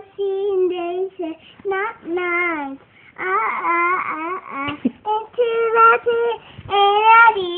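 A young child singing loudly without clear words, holding a series of long notes that bend and slide in pitch. A rougher, strained stretch comes a little past the middle.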